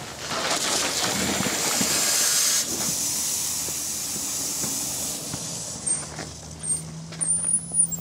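Loud hiss of water rushing through a fire supply hose as it charges from an opened hydrant into a fire engine's intake. The hiss is strongest in the first few seconds and then fades. Near the end come a steady low hum and a few brief high squeaks.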